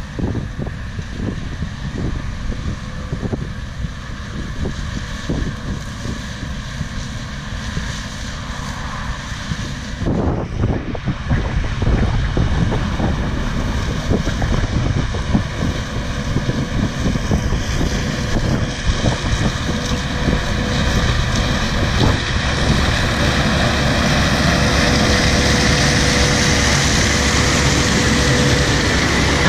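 Holmer T4-30 self-propelled sugar beet harvester running as it lifts beets, growing louder as it approaches, with wind buffeting the microphone. A steady whine comes in over the machine's noise near the end as it draws close.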